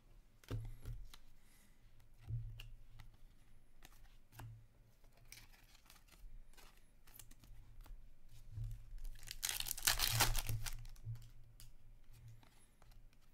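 A trading card pack wrapper torn open, loudest as a crinkly tear lasting about a second, roughly ten seconds in, amid scattered light clicks and rustles of cards being handled.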